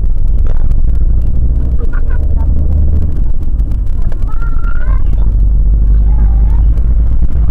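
Steady low rumble of a moving vehicle, its road and engine noise mixed with wind on the microphone, picked up by a vehicle-mounted camera while driving.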